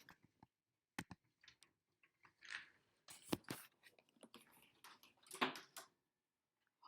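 A marble rolling through a homemade marble run, faint with scattered light clicks and knocks as it hits the track pieces, a cluster about a second in, another around three seconds in and a last few near the end.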